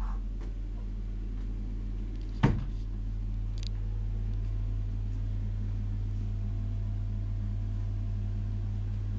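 Steady low electrical hum, with a single sharp knock about two and a half seconds in.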